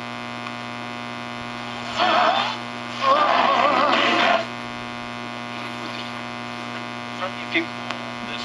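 Unrestored 1930 General Electric T-12 tube radio giving a loud, steady mains hum from its speaker between stations. Two short warbling bursts of station sound cut in about two and three seconds in as the dial is tuned.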